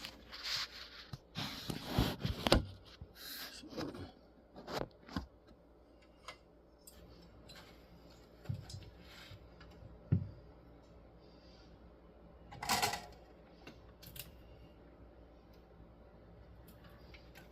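Small clicks and taps of hand work at a soldering bench: tools, wires and connectors being handled and set down, busiest at the start, with one louder clack about three-quarters of the way through.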